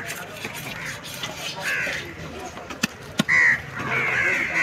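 Crows cawing several times, the loudest caw a little over three seconds in. Under them, a knife scrapes the scales off a large catla fish, with two sharp clicks just before that loudest caw.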